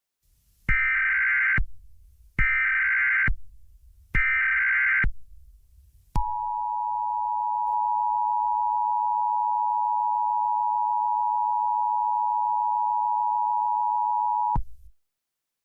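Emergency Alert System SAME header: three identical short bursts of warbling data tones, each under a second, then a steady EAS attention tone held for about eight seconds that cuts off abruptly.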